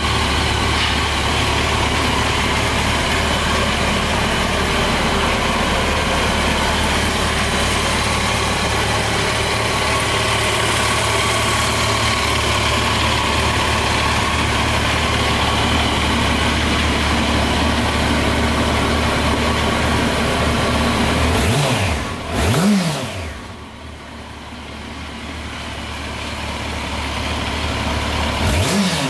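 Yamaha FZ8's 779 cc inline-four engine idling steadily. It is blipped twice, rising and falling in pitch: once about three-quarters of the way through, and again at the very end.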